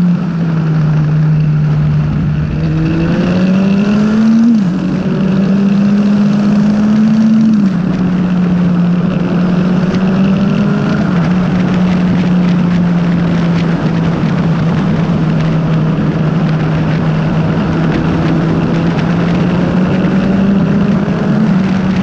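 Motorcycle engine heard on board while riding, over a steady rush of wind. The revs climb and then drop sharply at gear changes several times in the first half, then hold fairly steady.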